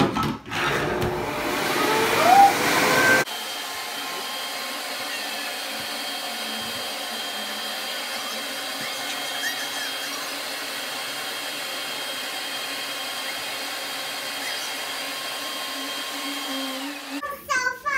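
Electric leaf blower running steadily, blowing air into a Wubble Bubble ball to inflate it. It is loudest for the first few seconds, then drops suddenly to a thinner, even hum with a steady whine.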